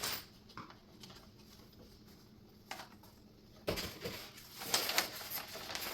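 Small knocks and clatter of flat-pack cabinet parts being handled and fitted, a quiet stretch with a couple of faint ticks, then a cluster of sharp clicks and knocks about two-thirds in.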